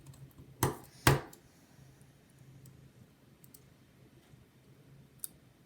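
Two sharp clicks about half a second apart, a little way in, and one fainter click near the end, over a faint low hum: small hard parts and tools being handled against a laptop during disassembly.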